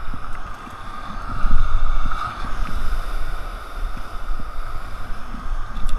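Wind rumbling on the microphone over surf and water washing around a kayak, loudest about a second and a half in.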